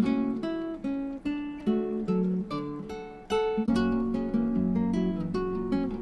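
Background music: plucked acoustic guitar playing a melody with strummed chords.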